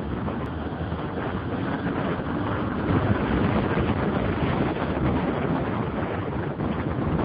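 Heavy wind rush buffeting the microphone of a BMW F650 Funduro motorcycle riding at speed, with the single-cylinder engine running underneath. The rush gets a little louder about three seconds in.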